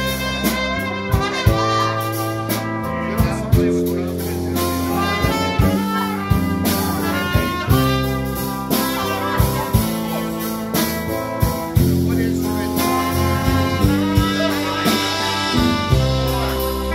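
Live band playing: a trumpet carries the lead over electric bass, electric guitar and a drum kit keeping a steady beat.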